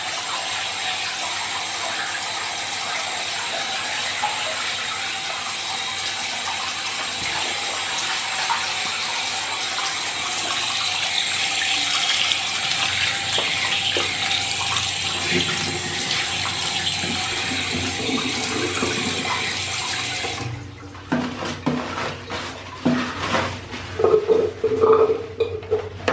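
Tap water running steadily into a sink as a hand is rinsed under the stream, cutting off suddenly about 20 seconds in. Then paper towels rustle and crackle as they are pulled from a dispenser and crumpled.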